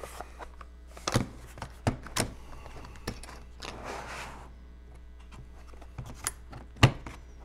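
A plastic drill-bit case handled on a workbench: scattered clicks and knocks as it is set down and its lid opened, with a short scraping swell about four seconds in and a sharper knock near the end.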